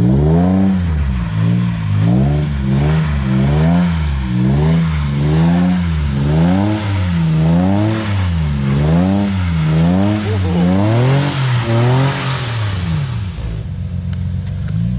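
Scion FR-S flat-four engine revving up and down in steady pulses, about one every 0.8 seconds, as the throttle is worked through a drift. About 13 seconds in it drops to a steady idle.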